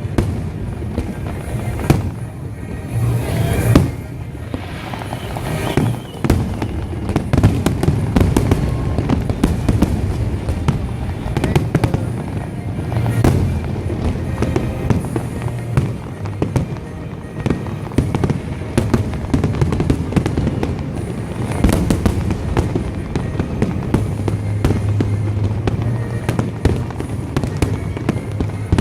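Large aerial fireworks display: shells bursting one after another in a continuous barrage of booms and crackles.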